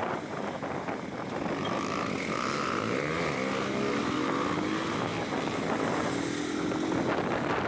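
Honda CB 300 motorcycle engine accelerating: its pitch climbs from about two and a half seconds in and keeps rising slowly, over a steady rush of wind on the microphone.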